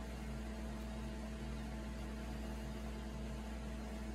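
Steady room hum and hiss with a few held low tones, unchanging, with no distinct events.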